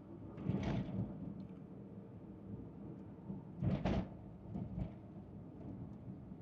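Inside a car's cabin while driving slowly: a low steady engine and road hum, with two short clunks, about half a second in and again near four seconds.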